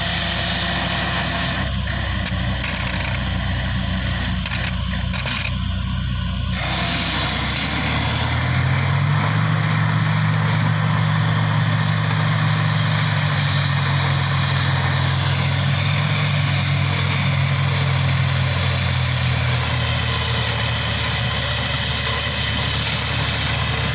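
Engine of a borewell drilling rig and its compressor truck running steadily. About eight seconds in, its note shifts and it grows a little louder, then runs on evenly.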